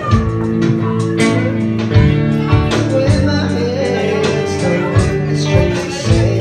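Live band playing a song: electric guitars over a steady beat.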